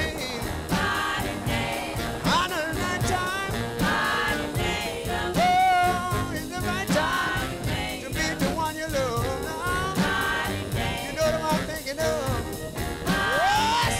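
Background music with a singer.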